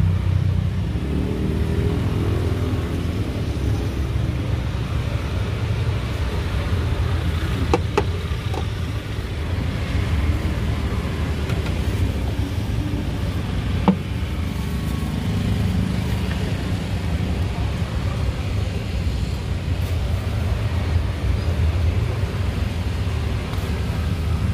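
Steady low rumble of road traffic passing close by, with two short sharp clicks partway through.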